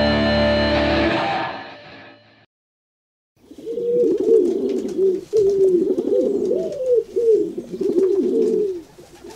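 Guitar music fading out, a moment of silence, then pigeons cooing in a run of repeated rising-and-falling coos.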